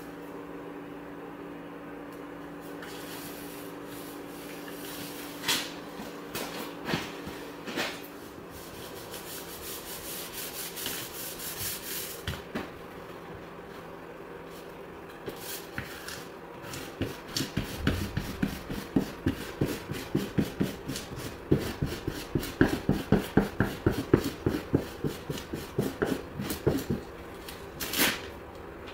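Plastic squeegee rubbing a vinyl decal down through its transfer paper on a vehicle door: scattered scrapes at first, then quick repeated strokes of about three a second through the second half, with one sharper stroke near the end. A faint steady hum sits underneath.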